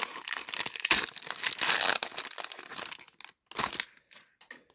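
Wrapper of a Bowman Draft baseball card pack being torn open and crinkled: dense crackling for about two and a half seconds, then a few lighter rustles and one short crinkle near the end.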